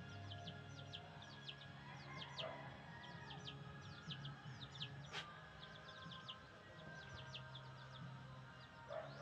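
Chicken chicks peeping: a steady stream of short, high, falling peeps, several a second, over a low steady hum, with one sharp click about five seconds in.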